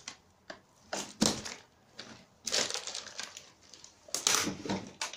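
Crunching and scraping in irregular bursts as a person crawls over loose rubbish and debris in a narrow tunnel, with the loudest bursts about a second in, about halfway through, and near the end.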